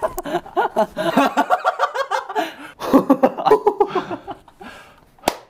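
Young men laughing hard in quick, breathy bursts, pausing briefly about two seconds in and then laughing again.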